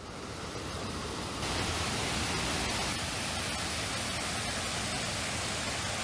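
Water from the spring pouring over a small rock spillway in a steady rushing hiss. It fades in over the first second and turns fuller and brighter about a second and a half in.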